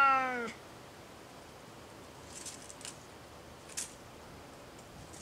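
A cat's meow, one call that falls slightly in pitch and ends about half a second in. Later come a few faint rustles and one light tick.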